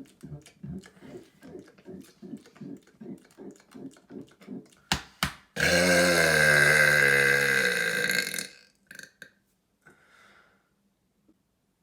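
A man's deliberate belch, loud and about three seconds long, sliding down in pitch, starting about five and a half seconds in. It is preceded by a run of short throaty gulps, about three a second.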